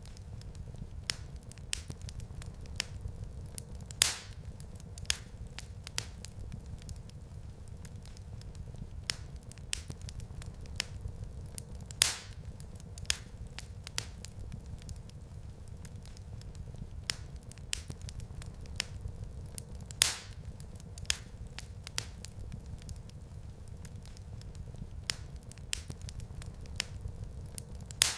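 Wood fire crackling in a fireplace: irregular sharp snaps and pops over a steady low rumble, with a few louder pops about every eight seconds.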